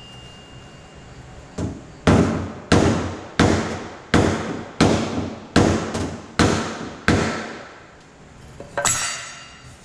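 Hammer blows on a wooden block held against a car door's steel skin, used to knock up a dip along the door edge. About eight firm, even strikes come roughly one every 0.7 seconds after a lighter first tap, and a sharper, ringing knock follows near the end.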